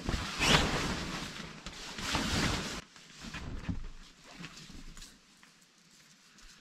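Heavy canvas cover rustling and swishing as it is pulled and tugged down over a nylon dome tent: two loud bursts in the first three seconds, then softer rustles that die away.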